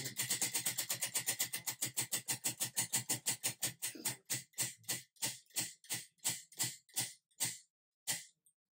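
Spinning prize wheel clicking as its rim pegs flick past the pointer, rapid at first and slowing steadily to a few clicks a second until the wheel stops near the end.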